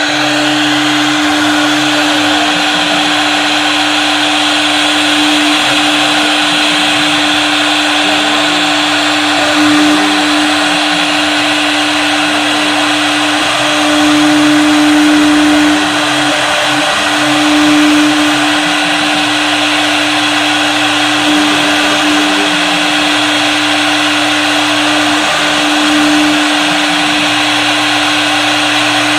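CNC wood router running, its spindle holding one steady whine over a continuous hiss of the bit cutting wood. A lower hum from the axis motors keeps starting and stopping as the machine moves between cuts.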